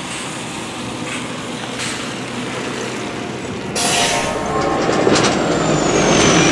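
Single-decker diesel bus pulling up at a stop, its engine running steadily. About four seconds in there is a sharp hiss of air, and the bus noise grows louder, with a high whine that falls in pitch near the end.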